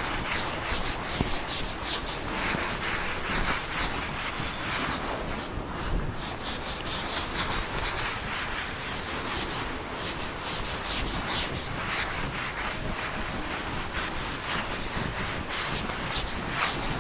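Handwriting: a writing implement scratching across a writing surface in a continuous run of short strokes, a few each second.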